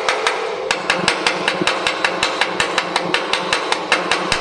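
Rapid, even hammer blows, about six a second, on a fresh weld bead on cast iron: peening the stick weld to relieve its shrinkage stress so the casting doesn't crack.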